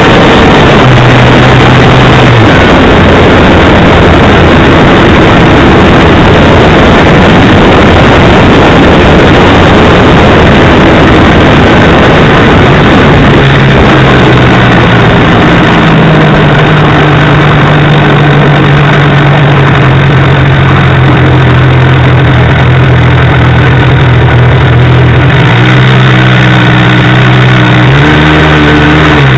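Model airplane engine and propeller heard from a camera mounted on the plane, loud and distorted with wind rush during the low pass, then settling to a steady idle from about halfway through as the plane lands and rolls out on the runway.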